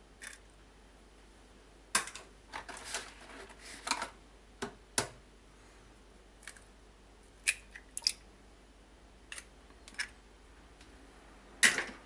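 Raw eggs being cracked and their shells pulled apart over a glass blender jar: a scattered series of short, sharp taps and cracks of eggshell.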